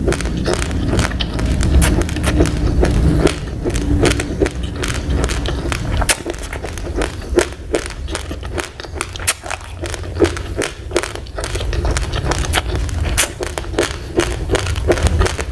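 Close-up crunching of dry raw rice grains being chewed: many sharp, irregular cracks and crackles over a low rumble.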